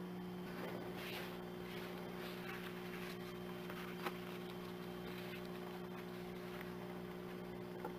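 Steady low electrical hum with faint rustling of paper cutouts being handled, and a light click about four seconds in.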